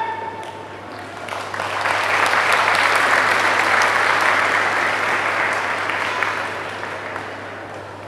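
Audience applauding in a large hall. The clapping swells about a second and a half in and dies away near the end.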